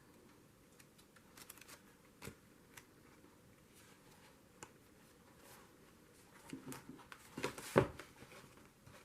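Paper pages being handled and turned: soft rustles and small taps, with a louder bout of rustling about seven to eight seconds in.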